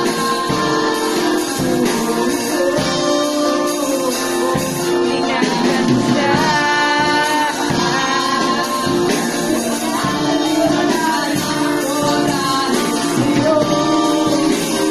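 Live band playing a pop ballad: singing over strummed acoustic guitars and a drum kit.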